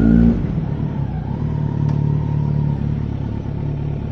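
Kawasaki Z900's inline-four engine running, freshly serviced with its exhaust gasket replaced: a short rev right at the start, then a steady, even drone at low revs.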